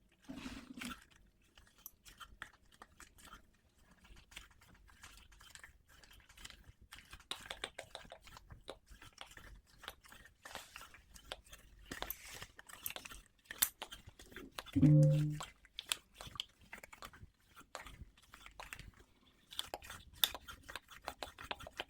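Close-up scissors crunching and snipping through something thick, as an ASMR cutting sound: irregular crackles and snips throughout. About fifteen seconds in comes a short, low voiced sound, the loudest thing heard.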